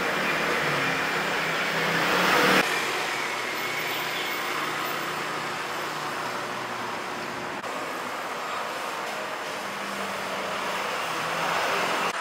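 Urban road traffic: a steady wash of passing vehicles with a low engine hum. The noise swells over the first two and a half seconds, drops sharply, then runs on more evenly.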